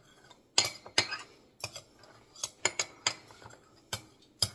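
A utensil clinking and scraping against a ceramic casserole dish as butter is worked into it, in a string of irregular sharp clicks.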